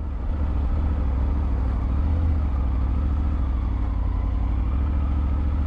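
Triumph Tiger 900 GT Pro's three-cylinder engine running steadily at low revs, a constant low rumble with no revving.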